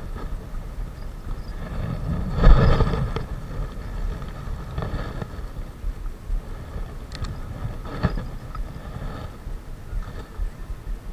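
Wind buffeting an outdoor camera microphone as a steady low rumble, with a stronger gust or bump about two and a half seconds in. A couple of light clicks come later, typical of the fishing rod and reel being handled.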